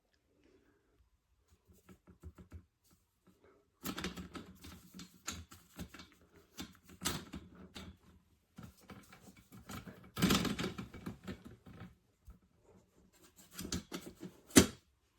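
Handling noise: irregular clicks, knocks and rustling, with a louder burst about ten seconds in and a sharp click near the end.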